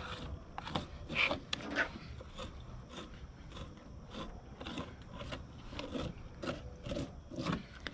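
Fillet knife slicing and scraping through alligator gar meat along the tough skin, a string of short, uneven strokes about two or three a second.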